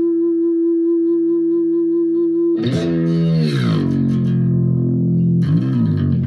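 Clean electric guitar through an amp and a LEKATO R COMP compressor pedal. A single note sustains evenly. About two and a half seconds in, a chord is struck that slides down in pitch over about a second and then rings on, and another strum comes in near the end.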